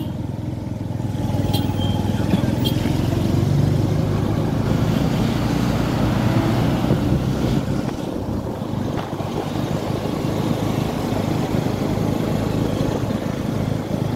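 A motorcycle engine running steadily as the bike rides along the road.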